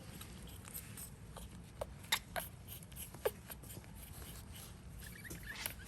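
Faint rustling and a few light clicks over a low steady hum, with the sharpest ticks about two and three seconds in and a brief rustle near the end.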